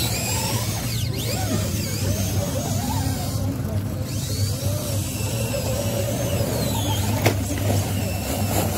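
Electric motors of radio-controlled scale rock crawlers whining, rising and falling in pitch, over a steady low hum, with a sharp click about seven seconds in.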